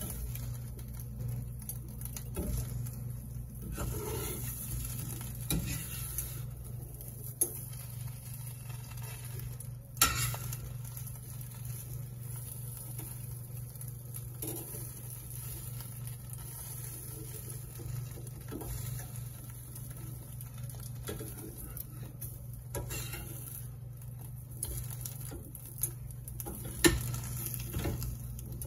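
Stirring and sizzling in a frying pan, with a few sharp knocks of a utensil against the pan, the loudest about a third of the way in and near the end.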